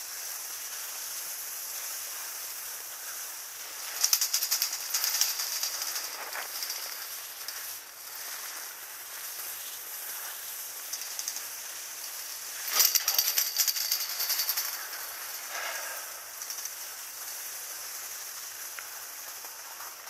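Skis sliding over snow while being pulled up a drag lift: a steady hiss, with two spells of loud rattling chatter, about four seconds in and again about thirteen seconds in.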